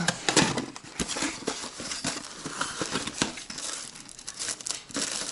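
Packaging of new engine spare parts crinkling and rustling as it is handled, in irregular crackly bursts.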